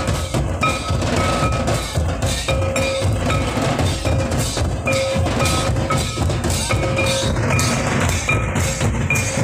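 Live drumming for a Santali circle dance: drums beaten in a fast, steady rhythm, including a large kettle drum, with a short ringing high note repeated over it again and again.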